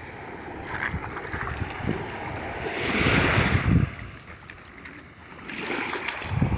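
Shallow surf washing in and out over the sand and shells at the water's edge, with wind on the microphone. A wash swells about three seconds in, fades, and builds again near the end.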